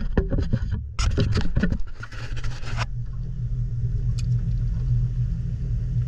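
Boat's motor running with a steady low rumble and hum. Over the first three seconds there is a run of short, irregular knocks and rustles, which then stop.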